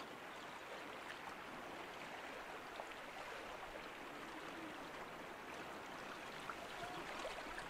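Faint, steady wash of a calm sea lapping at the shore.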